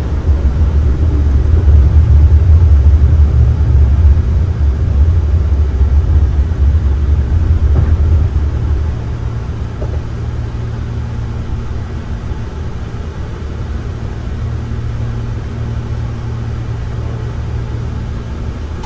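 Airbus A330-300 cockpit noise in the initial climb at takeoff thrust: a loud low rumble of airflow and engines. It drops noticeably about nine seconds in, as the landing gear finishes retracting and its doors close, then runs steadier and quieter.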